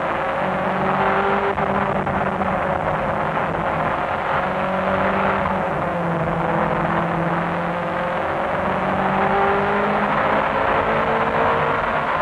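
Nissan R90CK's 3.5-litre twin-turbo V8 race engine heard from the cockpit, running hard with its wastegates stuck shut. Its pitch rises and drops in steps as the car takes a run of corners.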